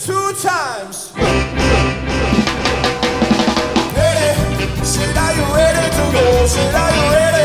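Live ska band playing, with drum kit, bass and a melodic lead line. Near the start a falling slide plays over a brief break with the low end dropped out, then the full band comes back in about a second in.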